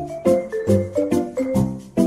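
Background music: a light melody of short struck notes over a steady beat, about two beats a second.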